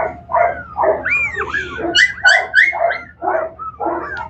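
Young Griffon puppy yelping and whimpering in a quick run of short, high cries, two or three a second, while held in a sling for a vaccine injection.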